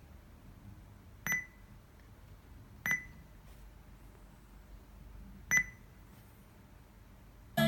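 Three short electronic button beeps from an Android car stereo head unit during a Bluetooth call test, the second about a second and a half after the first and the third about two and a half seconds later, over a faint low hum.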